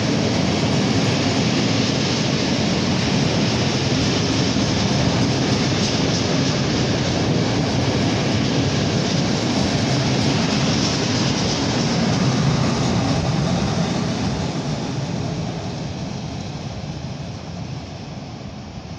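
Freight train of open wagons rolling past, a steady noise of wheels on rail that fades over the last several seconds as the end of the train goes by.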